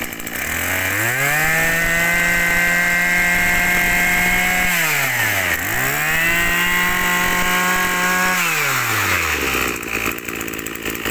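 A used Japanese brush cutter's small engine revved twice from idle to full throttle. Each time it holds a high, steady whine for about three seconds, then drops back to idle; it settles at idle near the end.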